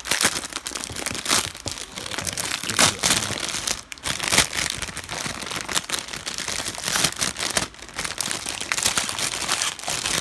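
Parcel packaging being torn and crinkled by hand as it is opened: an irregular run of crackling rustles and rips.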